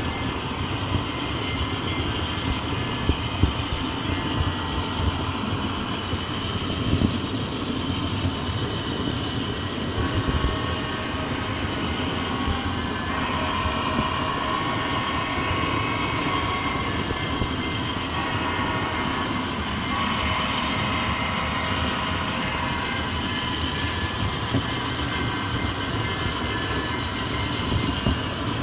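A train running on rails: a steady rumble and wheel-on-track noise, with a few short sharp clacks near the start.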